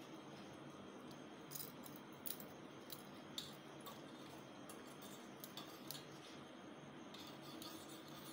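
Faint handling sounds of hands pressing cutlet dough in a steel mixing bowl, with a few light clicks and taps against the bowl, over a steady low hum.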